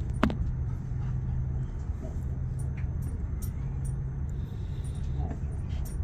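Passenger train running slowly, heard from inside the carriage: a steady low rumble with a steady low hum, a sharp click just after the start and a few faint high ticks from the wheels and track.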